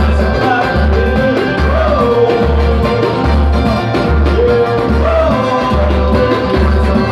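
Samba group playing a partido-alto medley: singing over a steady, evenly repeating low drum pulse.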